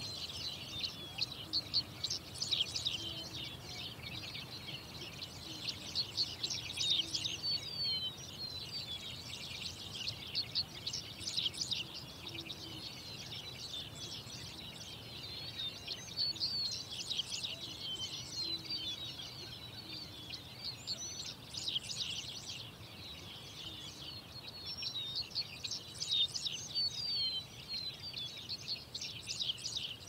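A dense chorus of small birds chirping, many rapid high calls overlapping, swelling in bursts about every five seconds.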